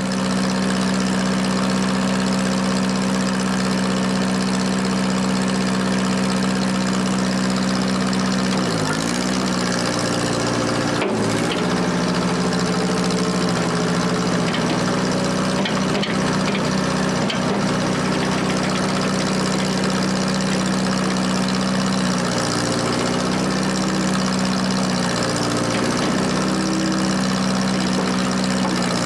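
Case CK530 tractor's engine running steadily, its pitch sagging briefly several times, twice around nine to eleven seconds in and a few more times in the second half, as it takes load from the loader hydraulics working the bucket. A single sharp click sounds about eleven seconds in.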